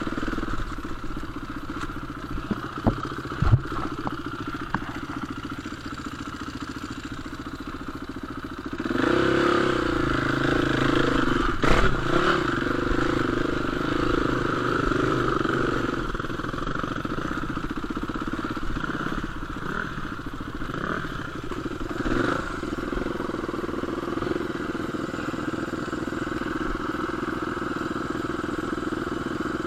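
Enduro dirt bike engine running at steady revs, opening up louder about nine seconds in for several seconds before easing back, with a few sharp knocks.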